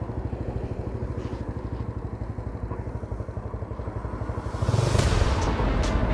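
Motorcycle engine running with a steady rapid pulse. About four and a half seconds in it gets louder as it pulls harder, with rushing wind noise rising and a few sharp ticks near the end.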